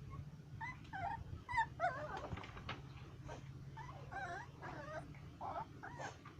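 Golden retriever whining, a run of short, high, wavering whimpers one after another.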